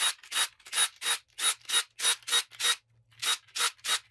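Cordless power driver running the valve body bolts out of a 4L80E transmission, in short even pulses about three a second with a brief pause about three seconds in.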